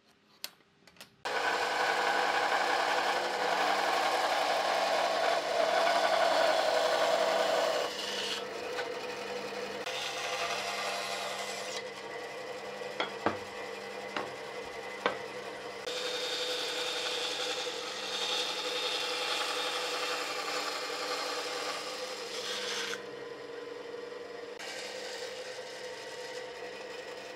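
Bandsaw running with a steady hum while its blade cuts into the edge of a thick round wooden disc, the cutting noise rising and falling in stretches as the wood is fed. It starts abruptly about a second in, and a few sharp clicks sound around the middle.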